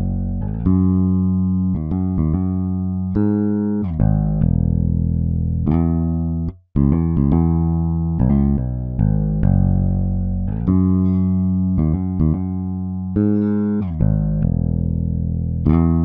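Sampled electric bass (EZbass Vintage with a clean DI tone) playing a slow contemporary R&B bass line in 6/8 at 72 BPM: long held plucked notes broken by quick short runs, with a brief break about six and a half seconds in.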